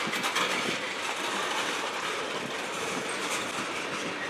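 Freight train cars rolling past on the rails, a steady rumble and clatter of steel wheels on track.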